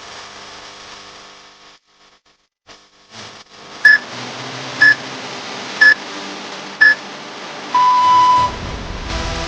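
Electronic timer countdown: four short high beeps about a second apart, then one longer, lower beep, the pattern of a workout interval timer marking the start or end of a set.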